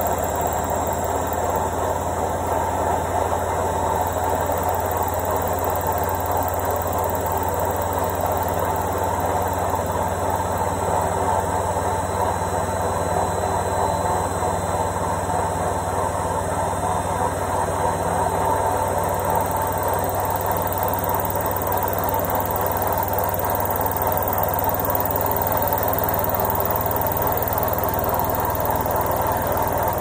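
Indesit front-loading washing machine running its final spin and drain: a steady running sound over a low hum, holding level throughout.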